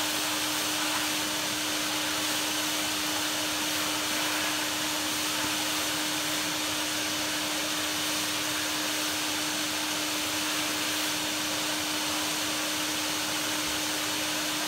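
Vacuum cleaner motor running steadily, with a constant hum over the rush of air, used to clean dust off vacuum parts.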